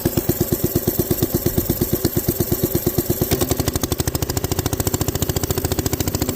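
Coleman B200R minibike's small single-cylinder engine chugging at low revs, its firing pace picking up a little about three seconds in as it is eased off the line. It keeps running without cutting out on its replacement carburetor.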